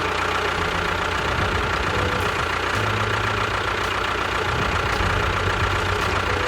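An engine or small motor running steadily, with a dense rattling noise and a steady high whine over it.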